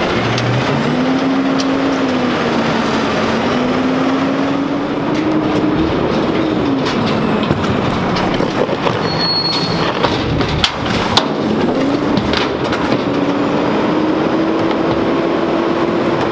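Garbage truck running at the curb, a steady drone with a whine that rises and falls in pitch. Scattered knocks and clunks in the middle as bins and bags are handled.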